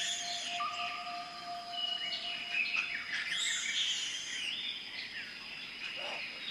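Jungle ambience: many birds calling at once, with chirps, rising and falling whistles and a long held whistle early on, over a steady high-pitched hum.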